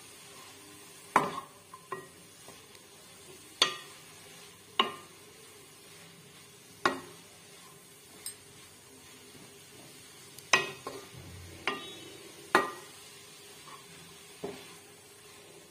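Wooden spatula stirring chopped radish leaves and radish pieces in a nonstick kadhai, knocking against the pan about nine times at irregular intervals, over a faint sizzle of the greens cooking.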